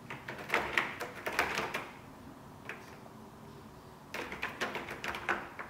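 A cat's claws scratching and catching on a sisal-rope scratching post as it climbs, in two bursts of quick scratchy rasps, each about a second and a half long, with a single click between them.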